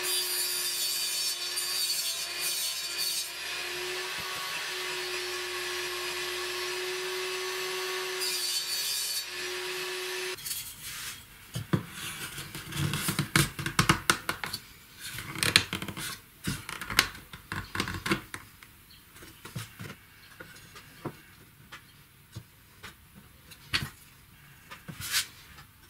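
Table saw running at a steady pitch while cutting a plywood sheet, with bursts of cutting noise near the start and again about nine seconds in; the sound cuts off suddenly about ten seconds in. Then sharp knocks and rubbing of wooden pieces being handled and fitted together on a workbench, busiest in the middle and sparse towards the end.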